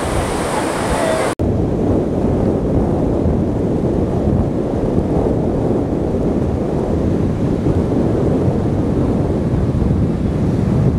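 Sea surf breaking along the beach, mixed with wind buffeting the microphone: a steady, low-pitched rush of noise with a momentary dropout just over a second in.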